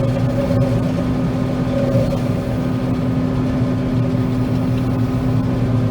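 John Deere 9500 combine running steadily, heard from inside its cab: a constant engine and machinery drone with a steady hum.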